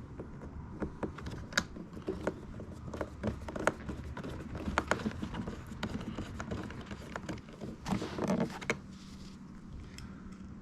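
Irregular light clicks and knocks, like hands working on hard parts, with a denser cluster of knocks about eight seconds in.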